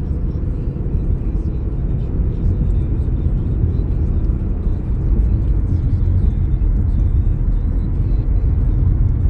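Steady road and engine rumble heard from inside a moving car's cabin.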